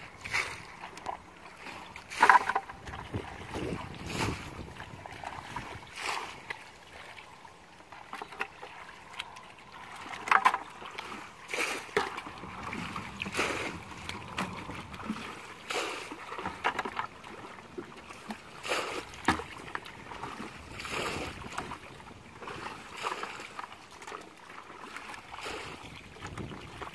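Hands splashing and squelching through shallow muddy water while groping for fish, in irregular short splashes about once a second, with two louder splashes about two and ten seconds in.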